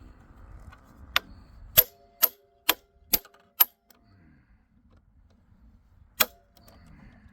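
Hammer blows on a steel driver tool set on a seized screw: six sharp metallic strikes about two a second, each with a short ring, then one more a few seconds later. The screw does not break loose.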